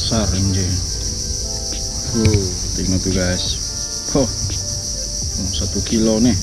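A steady, high, unbroken insect drone, typical of cicadas or crickets. Under it runs a background song, a melodic voice over sustained instrument notes, with phrases rising and falling every second or so.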